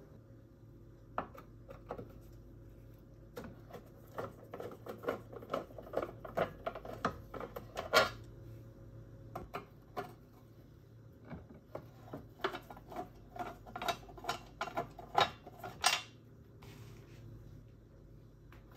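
A screwdriver undoing the rusty screws on a plastic mower belt cover: irregular metallic clicks and ticks, coming in quick runs in two spells, with a faint steady hum underneath.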